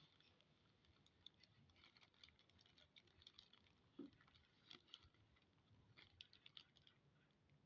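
Near silence broken by faint, scattered light clicks and taps, small handling noises, with a slightly stronger knock about halfway through.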